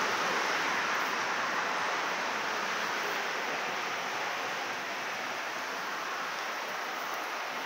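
Steady rushing hiss of blowing air, even throughout, easing slightly about halfway through, with no distinct animal calls or knocks standing out.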